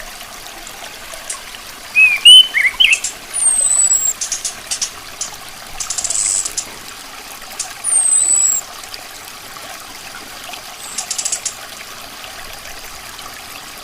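Orange-headed thrush calling: a cluster of short sharp notes, two high, thin, falling whistles and several brief rattling bursts, over a steady trickle of water.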